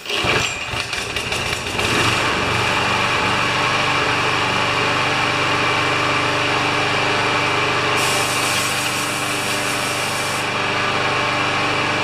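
Briggs & Stratton single-cylinder four-stroke engine on a Craftsman push mower pull-started, sputtering for about two seconds, then running steadily. It fires right up with its automatic choke repaired.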